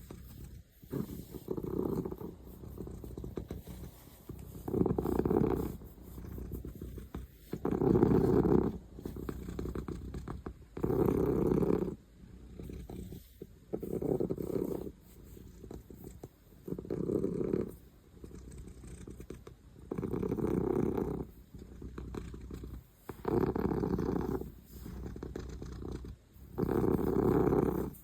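Domestic cat snoring: a louder snore about every three seconds, with a quieter breath between each.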